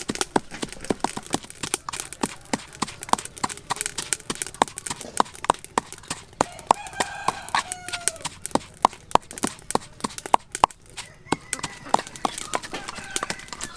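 Wooden pestle pounding in a wooden mortar, about three dull knocks a second, as red chilies and seasonings are crushed into a paste.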